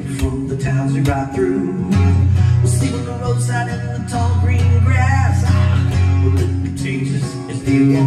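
Solo man singing while strumming an acoustic guitar, with the strums coming in a steady rhythm and low bass notes ringing out under the voice from about two seconds in.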